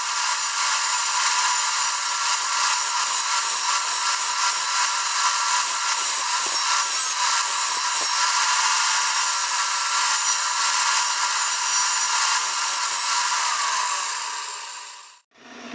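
Power saw cutting steadily through a length of ash wood for an axe handle, a continuous cutting noise that stops shortly before the end.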